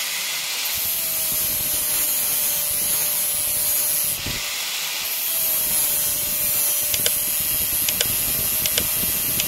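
Handheld angle grinder with a coarse sanding disc grinding down a weld bead on a titanium bicycle frame: a steady motor whine under a harsh grinding hiss, easing off briefly about four seconds in. The hard titanium is barely smoothed by the coarse disc.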